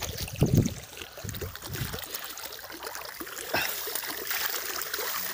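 Grass rustling and brushing against a hand-held phone as the person walks through it, with irregular footfalls and handling bumps, the loudest about half a second in.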